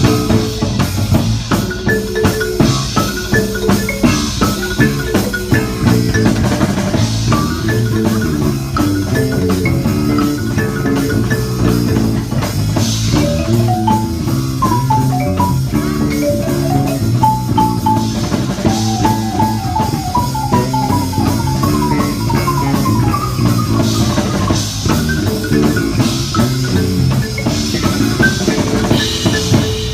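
Yamaha YM-400C marimba and Sugi NB-5 electric bass playing an upbeat pop tune together over a steady drum beat, with quick runs of marimba notes.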